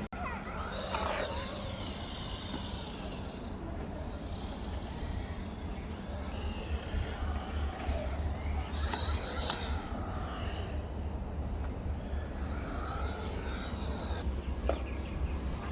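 Small brushed electric motor of an HBX 18859E RC truck whining in short bursts that rise and fall in pitch as it is driven, over a steady low rumble of wind on the microphone.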